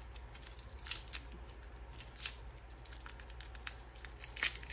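Irregular small sharp clicks and light rustling of hard plastic as the Logitech Brio webcam's hinged mounting clip is handled and worked open.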